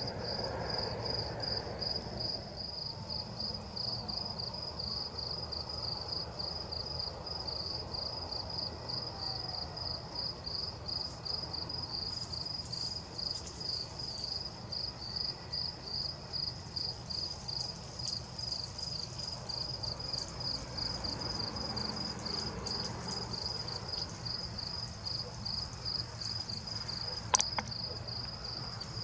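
A cricket chirping steadily at night, a high, even pulse of about three chirps a second that never stops. A single sharp click comes near the end.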